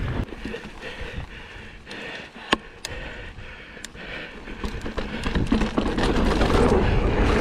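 Wind buffeting the microphone and tyres rolling over a dirt singletrack as a Specialized Stumpjumper mountain bike descends the trail, with scattered clicks and rattles from the bike. A sharp knock comes about two and a half seconds in, and the rumble grows louder over the last few seconds.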